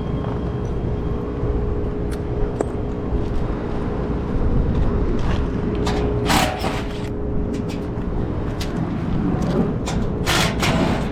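Steady mechanical hum of rooftop HVAC equipment running, with two short bursts of hiss about six and ten seconds in.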